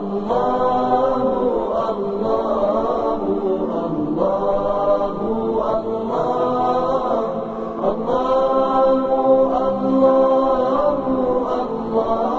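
Wordless sung vocal 'aahs' in the Arabic nasheed style: layered voices chanting long, gliding held notes in phrases of about two seconds, with one longer held phrase past the middle.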